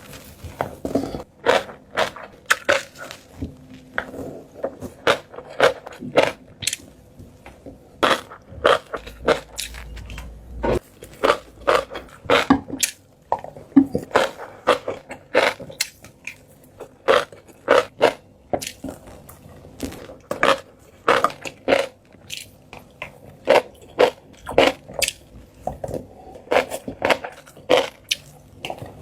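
Close-miked chewing of shrimp topped with fish roe: a steady run of sharp chewing clicks, about one or two a second.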